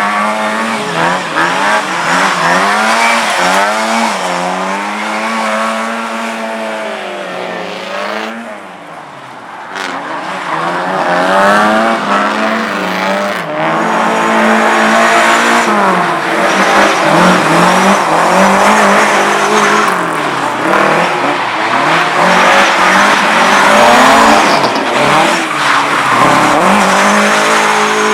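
Race car engine revving hard, pitch climbing and dropping again and again through gear changes and lifts as the car is driven around a tight course. Tyres squeal and slide, and the engine briefly eases off about nine seconds in.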